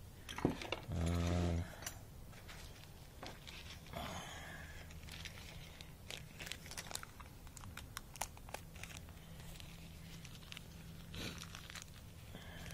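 A paper parts packet crinkled and torn open by hand, with many small rustles and clicks. A short hummed voice sounds about a second in.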